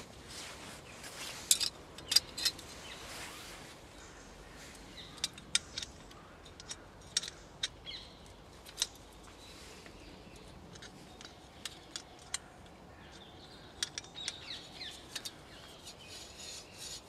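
Jetboil stove parts being handled and refitted: scattered light clicks and scrapes as the pieces are fitted together.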